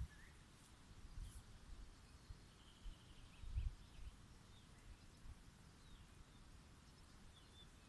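Faint outdoor quiet with a few small bird chirps, a short run of them about three seconds in and more near the end, over low rumbling bumps on the microphone.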